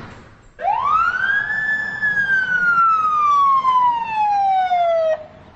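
A police siren sounding one wail: its pitch rises quickly, then falls slowly for several seconds before cutting off suddenly near the end.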